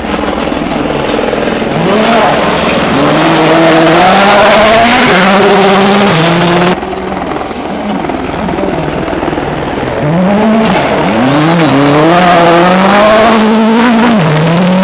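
World Rally Car engines at full throttle on a gravel stage, pitch climbing and dropping through gear changes. An abrupt cut about 7 s in breaks the sound. After it a car builds up again and is loudest as it passes close near the end.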